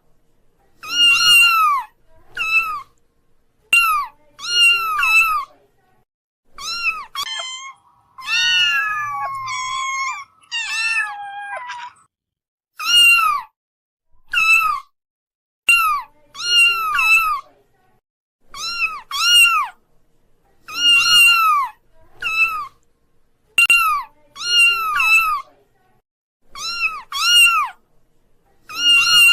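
Kitten meowing over and over: high-pitched meows that rise and fall, mostly in quick pairs and threes with short pauses between, and a longer run of overlapping meows about a third of the way through.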